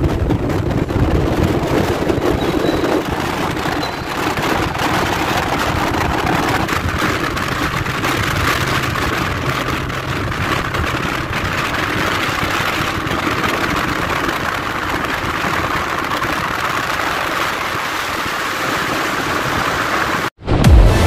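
Motorcycle on the move: engine running under a steady rushing road and wind noise, which cuts off suddenly near the end.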